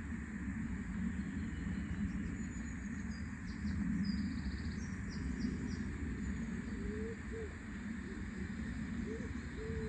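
Riverbank ambience: a steady low outdoor rumble, with small birds twittering briefly in the middle and a pigeon cooing in short low calls in the second half.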